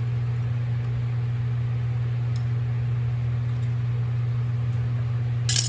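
Portacool evaporative cooler's fan running with a steady low hum, and a sharp click near the end as a C-clip is worked onto the tractor's wheel spindle.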